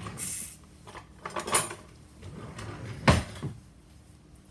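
Kitchen handling clatter: a few knocks and scrapes of utensils against a frying pan and the counter, the loudest a sharp knock about three seconds in.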